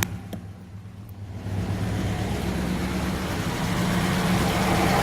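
A 1973 Rover P6 3500S's 3.5-litre V8 idling steadily at a fast idle of about 1,000 rpm, too high for its intended 750–800 rpm, with the idle screws not yet turned down. It grows louder over the first couple of seconds, then holds steady.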